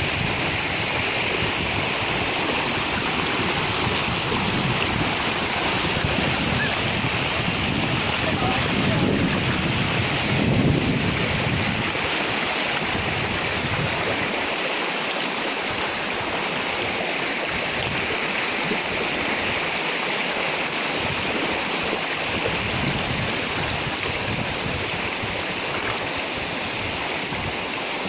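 Shallow rocky river rushing over stones, a steady wash of water noise, with wind rumbling on the microphone through roughly the first half.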